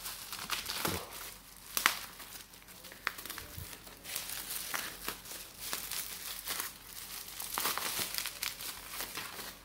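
Black plastic wrapping and bubble wrap crinkling and rustling in irregular crackles as it is pulled off a small package, with a sharper, louder crackle about two seconds in.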